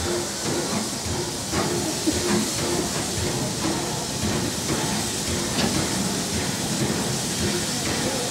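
BR Standard Class 9F 2-10-0 steam locomotive No. 92214 moving slowly along a station platform, its steam hissing steadily with occasional light clanks.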